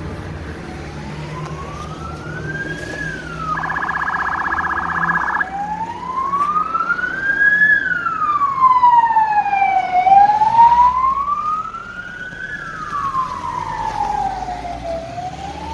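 A police car siren wailing, its pitch rising and falling slowly in cycles of a few seconds, with a short stretch of rapid warble about four seconds in, over the low rumble of passing traffic.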